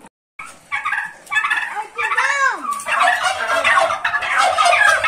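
Domestic turkeys gobbling, with loud, rapid gobbles that overlap one another. They start about half a second in, after a brief moment of silence.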